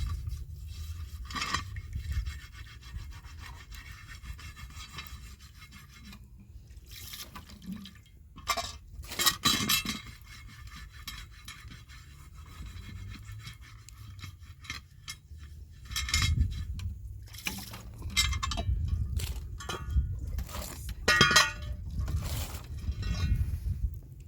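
Irregular clinks, rubs and scrapes of objects being handled, coming in clusters, over a steady low rumble.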